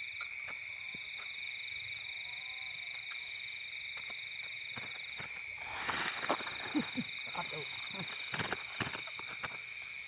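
Steady high-pitched night chorus of calling animals, a continuous ringing drone. From about six seconds in, grass and dry leaves rustle and crackle as hands push into the vegetation.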